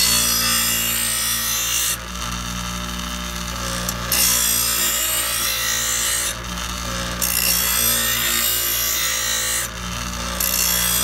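Ryobi 6-inch bench grinder running with a steady hum while a steel lawnmower blade is ground against its wheel to sharpen the edge. The grinding hiss comes in several passes, each a couple of seconds long, with brief breaks between them while the motor keeps running.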